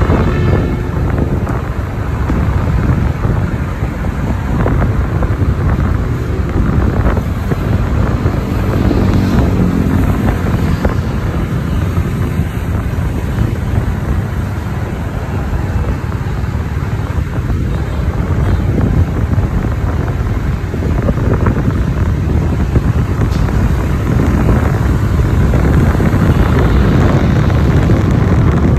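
Steady wind buffeting the microphone over the noise of a moving vehicle, a loud, constant rumble with no clear pauses.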